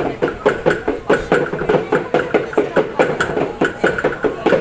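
A drum struck in a steady beat, about three strokes a second, accompanying a Maengket dance, with a group of voices singing underneath.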